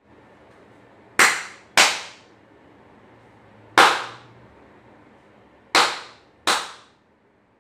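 Sharp hand claps, five in all: two in quick succession, a single one, then two more. Each dies away quickly. They are clapped to switch a clap-switch circuit (741 op-amp and CD4017 counter) that toggles a bulb.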